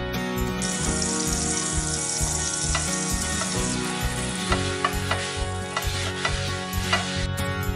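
Hot frying pan on a gas stove sizzling as it is greased with a paper towel, a steady hiss with a few light clicks that starts about half a second in and stops suddenly near the end. Soft background music plays underneath.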